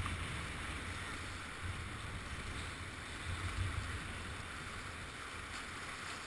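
Steady rush of big, high-water whitewater heard from a kayak in the rapid, with irregular low rumbling buffets on the microphone.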